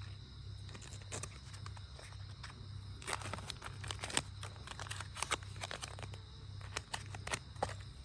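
Handling noises: sharp clicks and crinkling rustles, thickest from about three seconds in, over a steady low hum.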